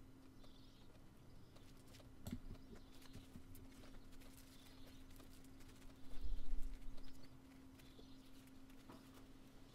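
Small hand-handling noises as two-part epoxy is squeezed into a small plastic bag: faint crinkles and light clicks over a steady low hum. A low thump comes a little past the middle.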